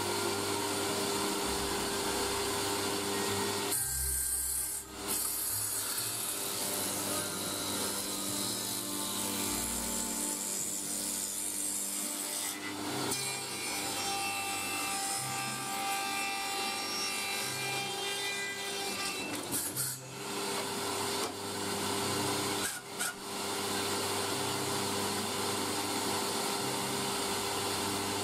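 Woodworking tenoning machine running, its cutter heads cutting a tenon on the end of a wooden rail as it is pushed through on the sliding carriage. Steady machine noise with a few short breaks and changes between passes.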